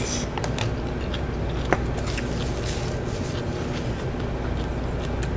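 Small clicks and knocks of chopsticks, spoons and dishes while eating, over a steady low room hum; one sharper click about a second and a half in.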